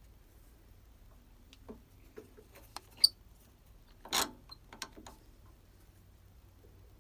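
Scattered light clicks and knocks of small hard objects being handled, the sharpest about three seconds in, followed about a second later by a short scrape or rustle and a few more soft taps.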